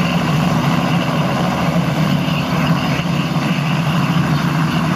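Light helicopter hovering low, its rotor and engine running steadily with a constant low drone.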